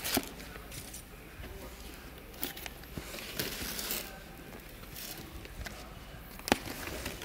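Cardboard box and its plastic wrapping being handled and the tape on its lid picked at: scattered rustles, scrapes and light clicks, with one sharp tap about six and a half seconds in.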